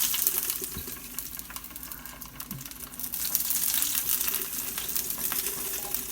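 Hot frying oil sizzling and crackling: a dense hiss full of small pops, softer for a moment and building again about three seconds in.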